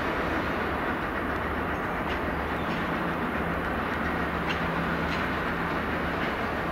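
Class 43 HST power car's diesel engine running with a steady low drone as the train rolls slowly over the points, with a few faint wheel clacks over the rail joints.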